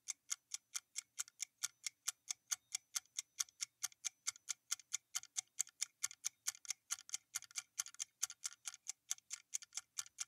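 Clock-ticking sound effect of a quiz countdown timer: a steady run of sharp, evenly spaced ticks, about four a second, marking the time given to answer.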